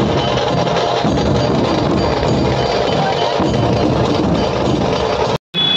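Music with heavy drums and percussion, dropping out for a moment near the end.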